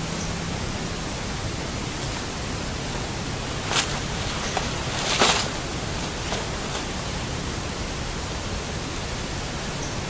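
Steady even hiss, with two brief rustles about four and five seconds in as a cloth bag is handled.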